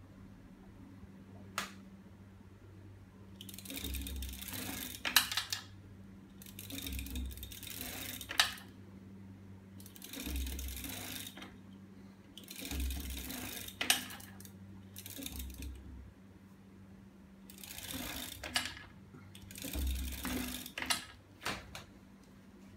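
A homemade aluminium swing-arm magnet engine mechanism cycling in strokes about every three seconds. Each stroke is a rattling metallic whir with a low thump, and several end in a sharp metal clack. A steady low hum runs underneath.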